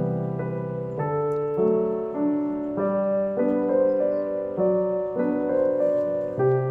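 Background music on a piano-like keyboard: a gentle tune of held notes and chords, a new one about every half second to second.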